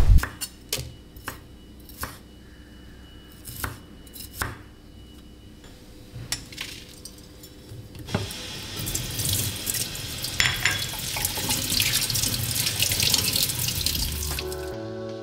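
Light clinks and knocks of dishes handled at a kitchen sink. About eight seconds in, a kitchen tap starts running water into a plastic colander, splashing steadily over a hand rinsing in it. The water stops just before the end, where music starts.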